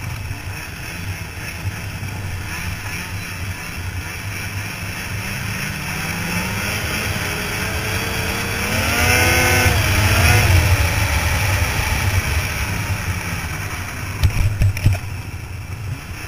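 2000 Ski-Doo Formula 500 Deluxe snowmobile's two-stroke engine running under throttle, heard from the rider's helmet. The engine note climbs to its loudest about nine to ten seconds in and then eases off, and a few sharp knocks come near the end.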